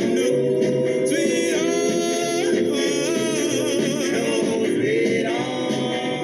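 Doo-wop vocal group singing in close harmony, several voices holding and sliding through notes together, with a wavering lead voice about halfway through, over a light backing beat.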